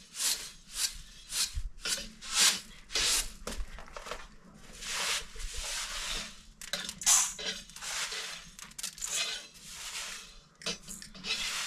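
A series of short scraping, rubbing strokes, two to three a second at first, then longer drawn-out strokes, with a dull low knock or two.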